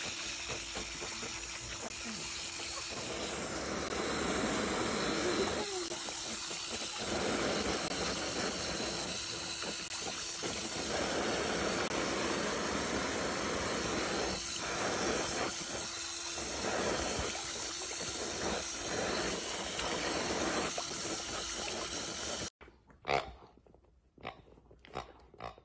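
A garden hose spray nozzle jets water across a shallow plastic paddling pool in a steady hiss, with splashes as a dog snaps at the spray. The hiss cuts off suddenly near the end, and a few short, quieter sounds follow as a dog mouths a rubber pig toy.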